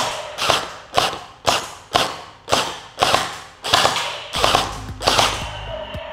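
Jinming J9 M4A1 water gel blaster firing single shots in quick succession, about two a second and roughly eleven in all, each a sharp crack that dies away. The shooting stops about five seconds in.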